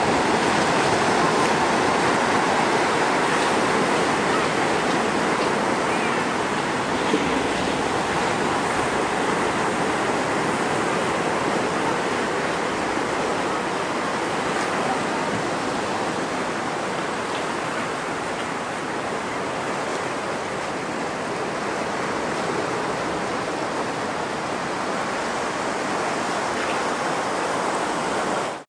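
Steady rush of surf: waves breaking on the reef and washing over the shallows.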